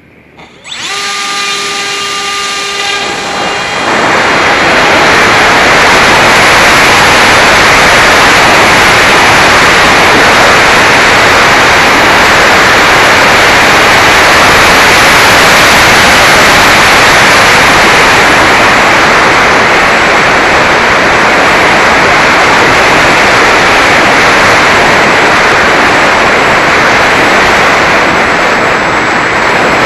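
The electric motor and pusher propeller of a Mini Talon model plane run up with a steady whine for a few seconds. A loud, even rush of wind and propeller noise on the plane's onboard camera microphone then takes over for the rest of the flight.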